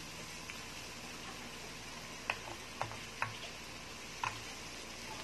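Chicken, crab sticks and garlic sizzling on a round grill pan, a steady hiss, with a few sharp clicks in the second half as chopsticks tap the pan while turning the food.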